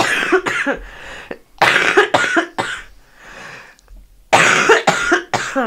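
A woman coughing into her elbow in three bouts of several coughs each. It is the chesty cough of a bad sinus infection with post-nasal drip.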